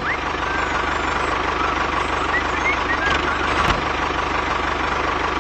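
Tractor engine running steadily, a fast even low throb under a hiss, with a few short faint high chirps.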